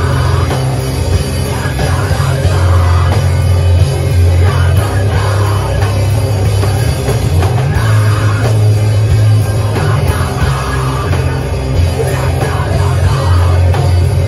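Live rock band playing loud, with a drum kit pounding under a heavy, sustained low bass.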